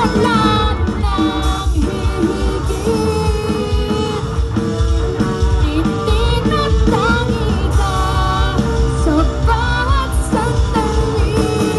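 Live band playing through a large outdoor PA: a lead vocalist singing a melody over electric guitar and a heavy, steady low-end beat, heard from within the crowd.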